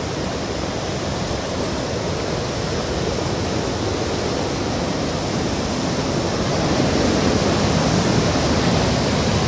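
River rapids: whitewater rushing between rock ledges as a steady, loud wash of water, growing a little louder about two-thirds of the way through.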